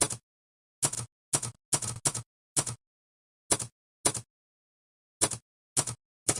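Typewriter keys being struck one at a time, about eleven sharp clacks at an uneven typing pace, with short pauses between bursts.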